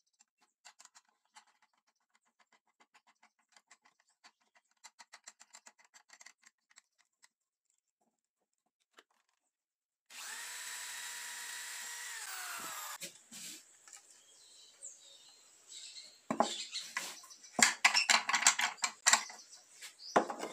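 Light rapid clicking as the wooden vise's threaded rod is wound by its knob. About ten seconds in, an electric drill runs steadily for about three seconds, boring a hole in a pine board, and winds down. Near the end come loud wooden knocks and scraping as the board is handled on the vise and bench.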